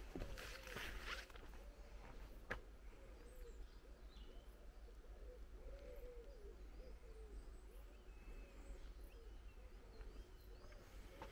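Faint cooing of pigeons, soft low hoot-like calls repeating irregularly, with a few faint high small-bird chirps. A brief rustle in the first second and a single click a couple of seconds in.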